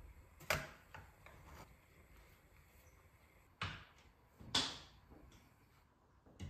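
Several short, sharp knocks and clicks of household objects being handled and set down, spaced irregularly, the loudest about four and a half seconds in.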